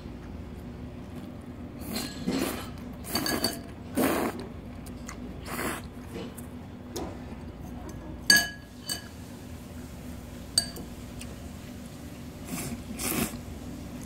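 Dishes and tableware clinking and being handled at a table, with several short noisy handling sounds. A sharp ringing clink of ceramic or glass comes a little past the middle, and a lighter one follows a couple of seconds later.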